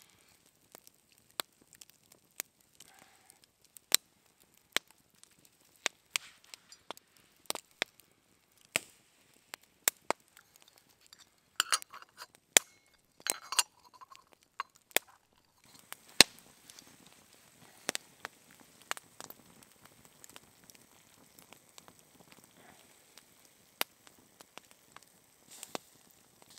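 Wood campfire crackling, with sharp irregular pops every second or so and a denser run of cracks around the middle.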